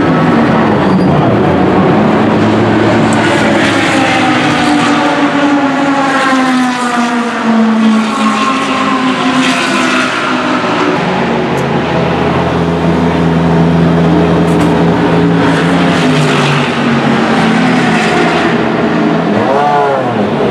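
Race car engines running past on the track, their note falling slowly as cars go by, with another quick pass near the end.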